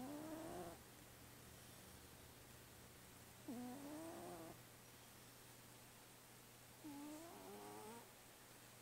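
A sleeping cat snoring faintly. There are three short pitched snores about three and a half seconds apart, one per breath, each rising in pitch and lasting under a second.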